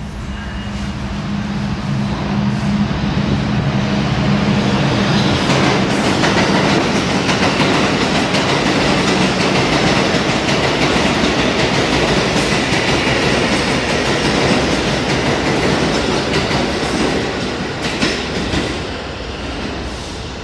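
R142 subway train running through an underground station on the express track without stopping. The steady noise of wheels and running gear on the rails builds over the first few seconds, stays loud, then fades near the end as the train pulls away into the tunnel.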